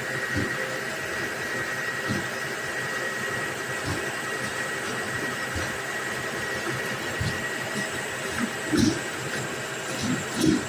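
Moving ladder lift truck running, a steady mechanical noise with a high whine throughout, and a couple of knocks near the end.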